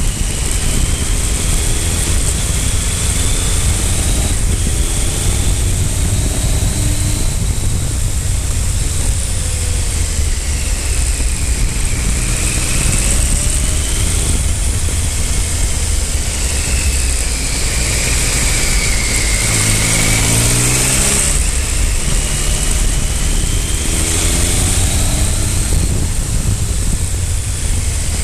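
Triumph Speed Triple 955i's three-cylinder engine under way, repeatedly rising in pitch and dropping back as it pulls through gear changes, with one slow-down and pick-up near the middle. A steady rush of wind noise lies under the engine.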